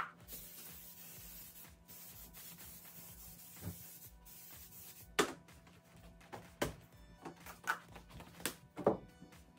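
A disinfectant spray hisses and a wipe rubs over surfaces for the first couple of seconds. After that come several short knocks of objects being handled and set down, over quiet background music.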